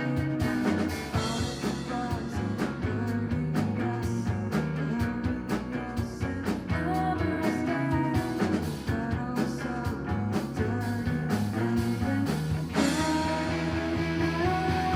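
Rock band playing live, with electric guitar, bass and drums. Near the end a new section begins with long held notes over the band.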